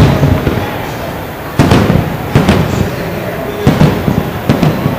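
Aerial fireworks shells bursting in a string of sharp bangs: the first about a second and a half in, two close together around two and a half seconds, and two more near the end, with a low rumble between them.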